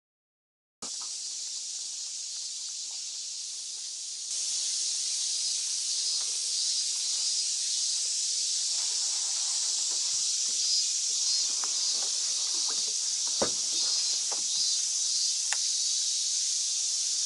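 A steady, high-pitched hiss of insects calling, silent for the first second and louder from about four seconds in. A few faint clicks and one sharper knock come about thirteen seconds in.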